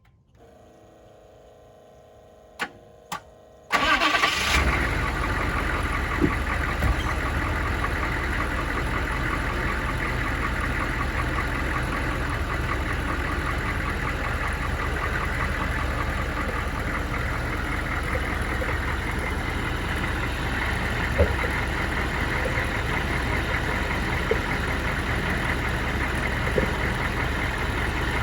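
Two clicks, then the 6.5-litre turbo diesel V8 of a 1998 GMC 3500 starts about four seconds in and settles into a steady idle.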